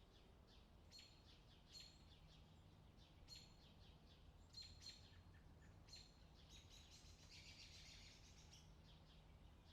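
Faint nature ambience of songbirds chirping: short high chirps every second or so, then a longer fast chattering trill about seven seconds in, over a low steady background rumble.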